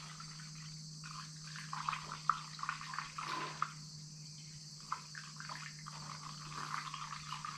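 Engine coolant poured from a jug through a plastic funnel into a radiator filler neck, gurgling and splashing in uneven spurts as the radiator fills.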